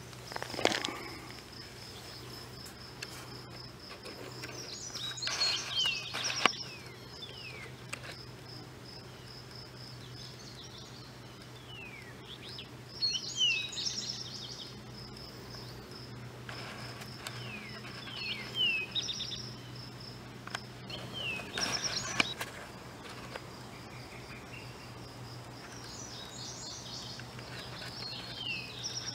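A steady high insect trill with a songbird singing short phrases of quick falling notes over it, about five times. There is a brief knock of handling about a second in.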